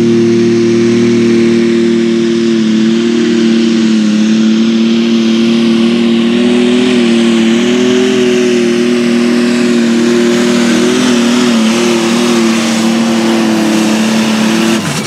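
AGCO Allis super stock pulling tractor engine running hard under load through a pull, a loud steady high drone that wavers slightly midway. It cuts off abruptly near the end as the run stops.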